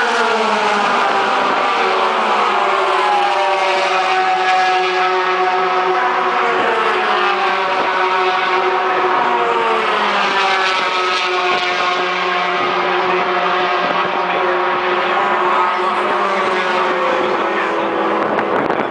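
Racing pickup trucks' engines at full throttle as a pack goes by, their pitch falling as they pass. Several engine notes then carry on together, some sliding up and some down as the trucks come and go around the track.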